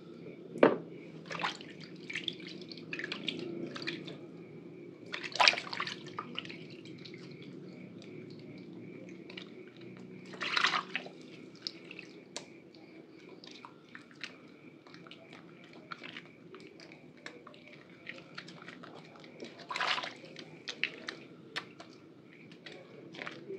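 Wet hands rubbing and turning a bar of Purbasari red antibacterial soap in shallow water: dripping, splashing and small wet slaps, with a few louder splashes.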